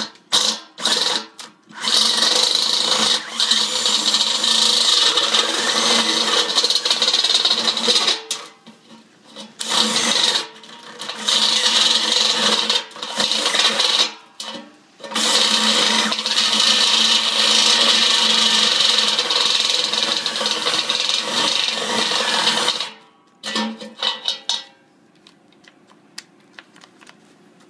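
Cordless drill turning a 7/8-inch step bit through the stainless steel wall of a beer keg, cutting with a steady high whine in several long runs separated by short pauses. It stops about 23 seconds in, after a few brief blips, once the hole is through.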